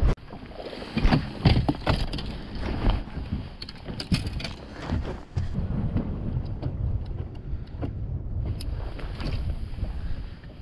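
Wind rumbling on the microphone over water slapping the boat hull, with several sharp knocks and clicks from handling a fishing rod and reel, loudest in the first three seconds.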